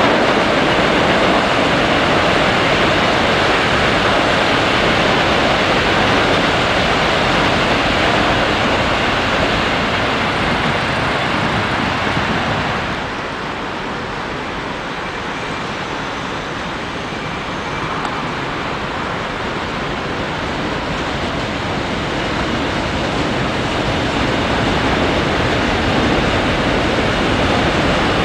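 Steady roar of passing electric commuter trains and road traffic by an urban railway bridge, loud at first, easing off about halfway through and building again as another train passes near the end.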